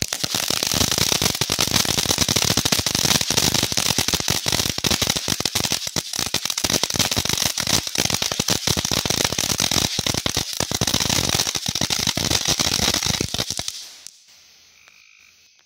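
Winda 'Koi Pond' fountain firework in its titanium crackle finale: a loud, dense, rapid crackling of many sharp pops. It stops abruptly about fourteen seconds in as the fountain burns out.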